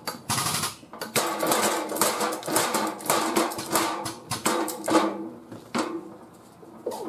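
Pneumatic quarter-inch stubby air ratchet running in short, repeated bursts with a rapid rattle, working a bolt. It is quieter in the last couple of seconds, with one short burst near the end.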